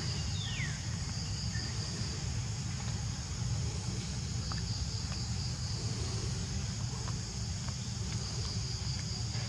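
Steady high-pitched drone of insects over a low background rumble, with two short falling chirps right at the start.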